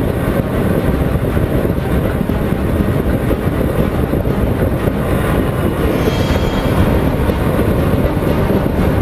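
Honda CBR 125R's single-cylinder four-stroke engine running steadily at highway speed, largely buried under a heavy, low rush of wind over the bike-mounted microphone.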